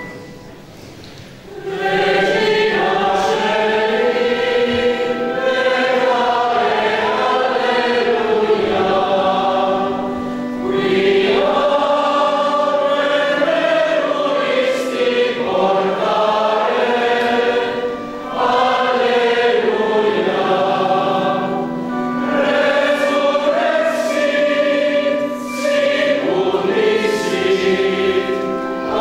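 A church choir singing a hymn in unison phrases, starting about two seconds in and pausing briefly between lines.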